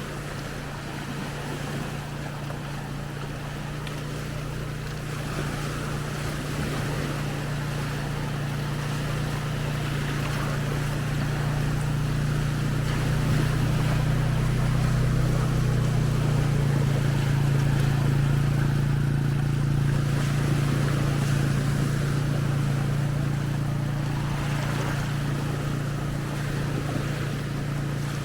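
Low, steady engine drone that swells to its loudest around the middle and then slowly fades, like a motor passing by, over the wash of small waves breaking on the shore.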